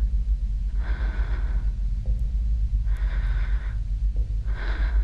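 A person breathing audibly, three breaths about two seconds apart, over a steady low hum.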